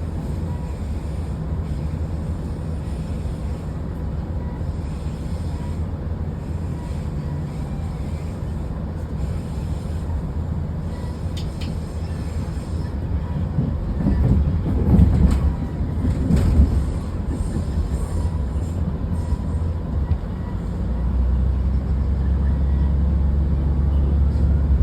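Passenger train running: a steady low rumble, getting louder and rougher with some clattering a little past halfway, then a heavier, steady low drone building near the end.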